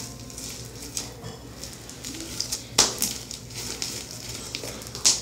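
Sticky, fluffy shaving-gel slime being kneaded and stretched in the hands: irregular wet squelches and crackles, with two sharp pops, one just under three seconds in and one near the end.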